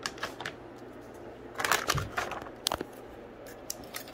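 Plastic anti-static bag crinkling in a short burst of rustles about midway, followed by a couple of sharp clicks and light ticks as an Asus RTX 3050 graphics card is handled.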